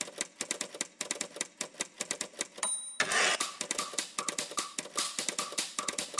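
Typewriter keys clattering in rapid, continuous typing. A short ring comes about two and a half seconds in, then the clatter goes on louder, with a short tone repeating a few times a second.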